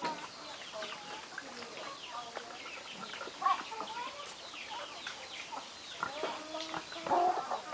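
Chickens clucking, many short calls overlapping, with a couple of louder calls about three and a half seconds in and near the end.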